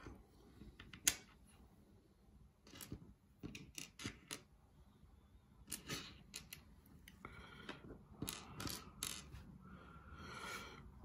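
Plastic building bricks (Lego-compatible clone bricks) being handled and pressed together: a run of sharp clicks, the loudest about a second in, with spells of rustling later on.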